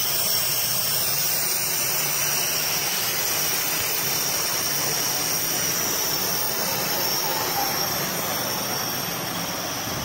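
A refrigeration compressor used as a vacuum pump, running steadily with a hiss and a low hum as it pulls a vacuum on a refrigerator's sealed system.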